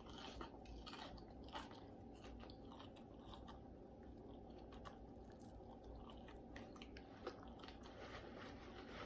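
A person chewing naked chicken wings close to the microphone: faint, irregular mouth clicks and smacks.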